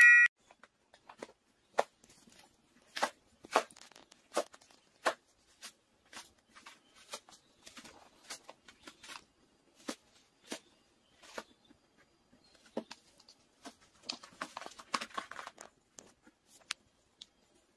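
A cat tearing and shredding paper: irregular sharp rips and rustles, coming thicker near the end.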